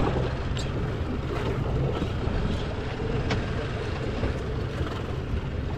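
Steady low rumble of a boat's engine running, with wind buffeting the microphone.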